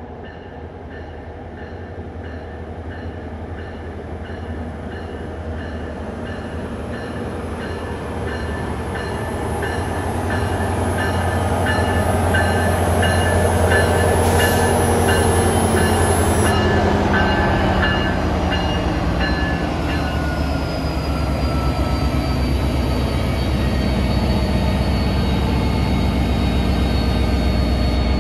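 NJ Transit PL42AC diesel-electric locomotive approaching and passing, its engine drone growing louder over about twelve seconds while a bell rings in a steady rhythm. As the locomotive goes by, the engine's pitch falls, and the train then rolls past steadily.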